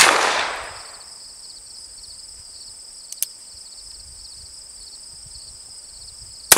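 Black-powder percussion revolver shots. The report of one shot fired just before the start rolls away over about a second, a faint click comes a little over three seconds in, and a second sharp shot goes off at the very end. A steady high insect drone runs underneath.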